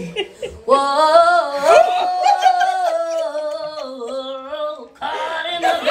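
A woman's voice singing one long held note that wavers and slowly falls in pitch, starting about a second in and stopping just before the end. Other voices break in near the end.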